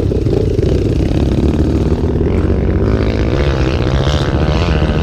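Trail motorcycle engine running steadily, with a slight wavering in pitch in the second half.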